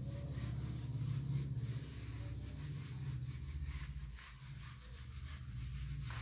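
Whiteboard duster wiping marker writing off a whiteboard: repeated back-and-forth rubbing strokes.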